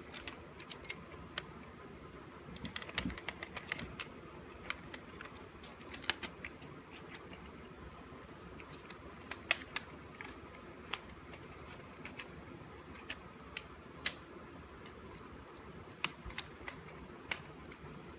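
Irregular sharp plastic clicks and taps as the plastic retaining clips holding the circuit board in a BMW Z4 (E85) instrument cluster housing are undone by hand.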